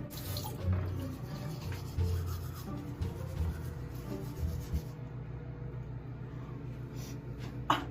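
Quiet background music with a low bass line, and a single sharp click near the end.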